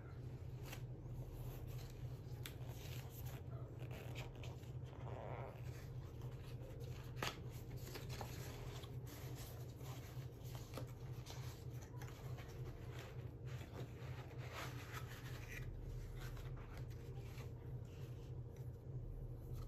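Cardboard gift box being opened and unpacked by hand: the lid and paper insert rustle and scrape, with scattered light clicks and taps as pieces are lifted out, and one sharper knock a little after seven seconds. A steady low hum runs underneath.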